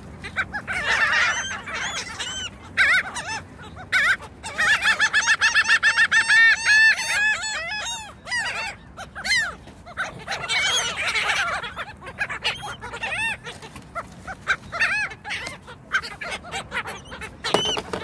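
A flock of laughing gulls calling, many overlapping calls at once, with a fast run of repeated laughing notes from about four to seven seconds in.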